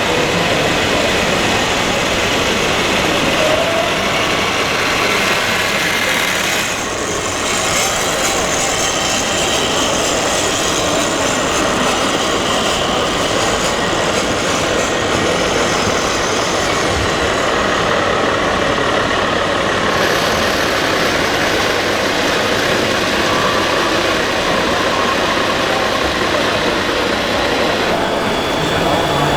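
RC model tractors running, giving a steady, loud engine-like noise. Its character changes abruptly twice, about a quarter and two-thirds of the way through.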